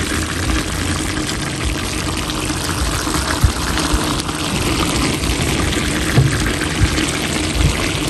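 Chicken adobo sizzling steadily in a wok as its sauce cooks down nearly dry, a dense, even crackle.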